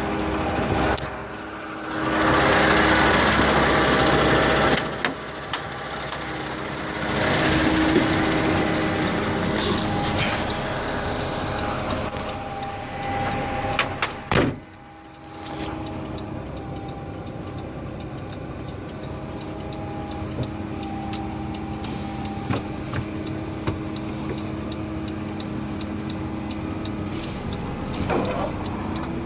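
Heavy diesel engine running steadily on a concrete pour, with louder stretches of rushing noise over it and a few sharp clicks about halfway through.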